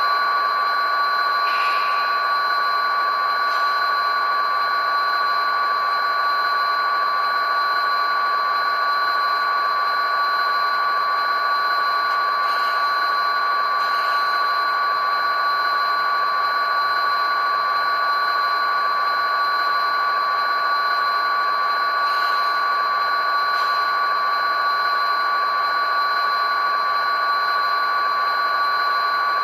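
Steady electronic whine of several held tones over a hiss from a stationary model locomotive's sound system, with a few faint ticks.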